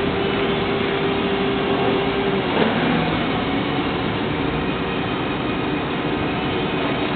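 Injection moulding machine running with its mould clamped shut: a steady mechanical and hydraulic drone. A held hum over it stops about two and a half seconds in, with a short burst of noise as it changes.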